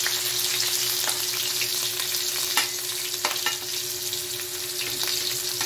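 Chopped garlic and sliced red onion sizzling steadily in hot oil in a metal wok, with a few sharp clicks of a metal spatula against the pan.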